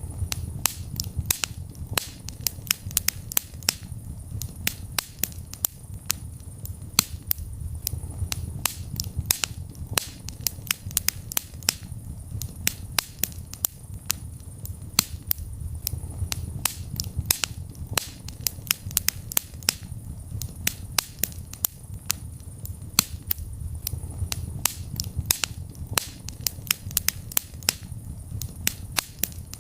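Wood fire burning in a fireplace: many sharp crackles and pops at irregular intervals, several a second, over a steady low rumble of the flames.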